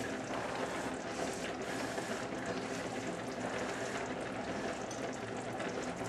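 Pots cooking on the stove: a steady crackling, bubbling hiss of simmering sauce and boiling pasta water.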